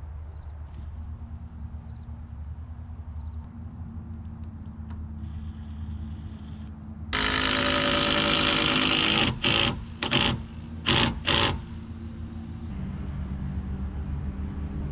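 A power drill runs, most likely driving a screw into the wooden top plate: one run of about two seconds starting about halfway through, then four short bursts. A steady low engine hum carries on underneath.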